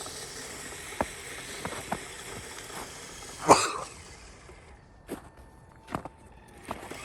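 A person coughs once, about halfway through, amid a few faint scattered clicks and knocks.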